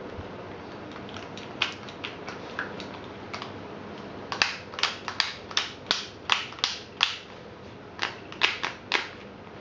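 Plastic clicks from a Beats Studio headphone being handled: its headband folded at the hinges and the size sliders pulled out and pushed back in. The clicks are sharp and separate, sparse at first, then come in a quick run from about four to seven seconds in and again around eight to nine seconds.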